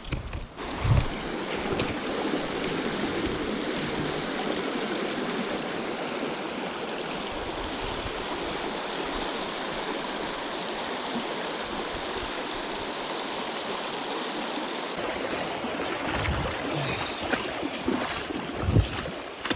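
A small creek rushing steadily over stones, a constant even rush of water. A few short knocks sound about a second in and again several times near the end.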